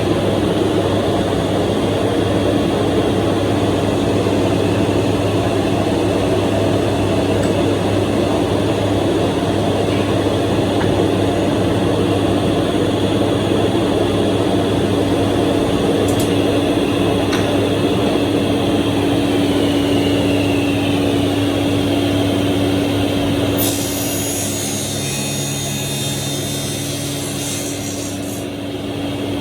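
Industrial two-blade sliding-table panel saw running with a steady hum. About three-quarters of the way through, the sound shifts, turning a little quieter with a high hiss.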